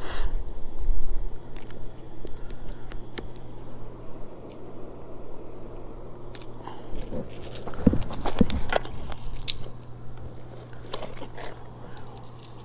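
Fishing tackle being handled: scattered small clicks and rattles of metal pliers working a lure and of lures and hooks inside a plastic tackle box, with a denser run of sharper clicks about halfway through. A steady low hum runs underneath.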